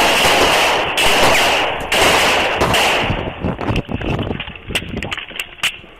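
Close-range gunfire: a dense, loud volley of rapid shots for about three seconds, then separate shots at uneven spacing, growing weaker and stopping shortly before the end.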